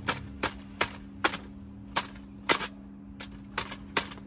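A fork punching holes in an aluminium-foil packet of wood chips: about nine sharp crinkling stabs, roughly two a second and unevenly spaced.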